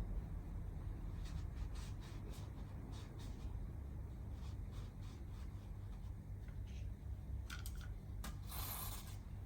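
Small scattered clicks and rubbing as brake parts and tools are handled during a brake caliper service. A short scraping rub comes near the end.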